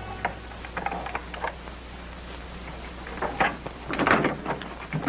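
Scattered clicks and knocks of a door lock and latch being worked and the door opened, louder and closer together about four seconds in.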